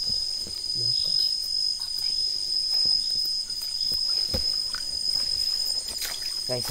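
Crickets trilling steadily in a high, continuous tone, with a few scattered sharp knocks.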